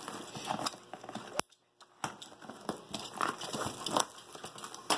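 Plastic packaging and cardboard being handled: crinkling plastic wrap and rustling cardboard flaps, with irregular sharp clicks and a brief pause about a third of the way in.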